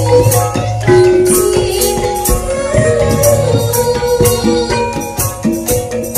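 Javanese gamelan ensemble playing loudly: thick-metal saron and demung keys and bonang gong-chimes struck hard in a steady, fast rhythm, with drums and sharp metallic strikes on the beat.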